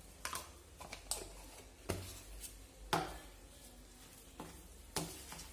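Metal spoon scooping tomato paste from a tin can into a bowl of meat: a series of light clicks and scrapes of spoon against can and bowl, about one a second.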